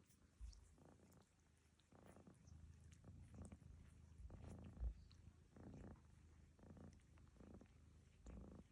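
A cat snoring softly: a faint low rumble in uneven bursts, about one a second. Faint clicks from another cat licking its fur come through alongside.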